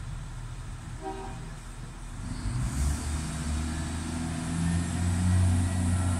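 Irish Rail 22000-class InterCity Railcar's diesel engines idling low, then opening up about two and a half seconds in to a deep, steady drone that grows louder as the train pulls away.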